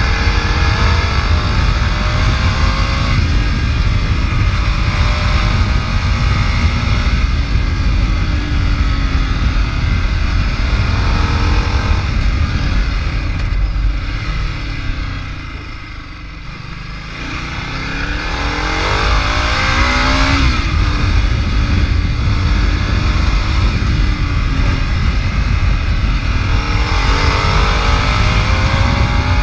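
Ducati Multistrada's V-twin engine under way, revving up through the gears again and again with its pitch climbing. About halfway through the throttle is eased off to a quieter coast, then it pulls hard again. A heavy rumble of wind on the microphone runs underneath.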